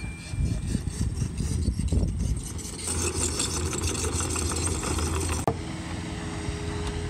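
Komatsu mini excavator's diesel engine running as the machine works in dirt. About five and a half seconds in there is an abrupt change to a steadier engine sound with a level hum.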